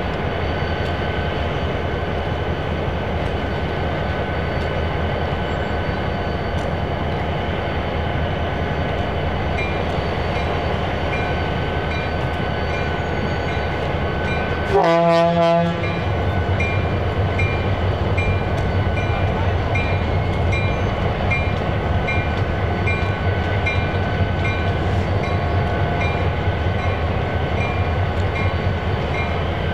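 Diesel locomotives running with a steady low rumble. About halfway through comes one short air-horn blast of about a second, and after it the engines run a little louder.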